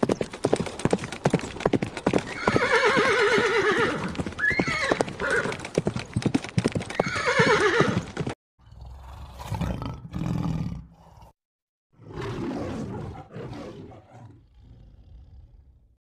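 Horse hooves clip-clopping in a steady patter, with the horse neighing a few times over them. About halfway through the recording cuts to a quieter one with several rough, noisy bursts.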